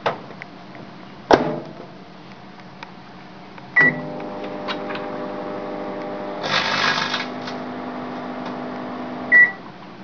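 LG microwave oven: the door knocks shut about a second in, then a keypad beep and the oven starts running with a steady hum. Partway through a short noisy crackle rises as the metallized chip bag inside sparks, and a second beep near the end marks the oven stopping.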